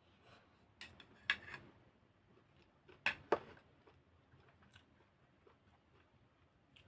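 Scattered sharp, crisp clicks and crunches of eating, with the strongest pairs about a second in and about three seconds in.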